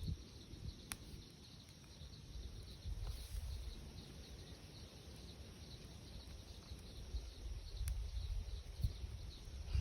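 Insects chirping in an even, steady rhythm over a low outdoor rumble, with a couple of sharp clicks.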